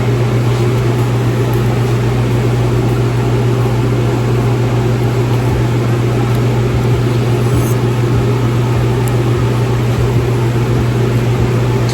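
Steady, loud low mechanical hum of running shop equipment, with a few faint light clicks past the middle.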